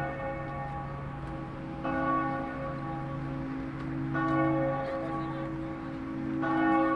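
Church bells ringing, a fresh strike about every two seconds over a lingering low hum, three strikes in all.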